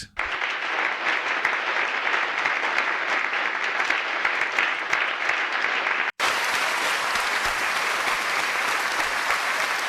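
AI-generated sound effect from ElevenLabs' text-to-sound tool: a steady, dense rain-like patter of noise, cutting out for an instant about six seconds in and then carrying on.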